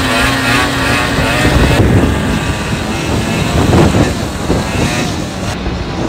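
A car's engine running under load, with tyre and wind noise, heard from inside the cabin while driving on a snow-covered road. The engine note bends up slightly in the first second, then holds steady.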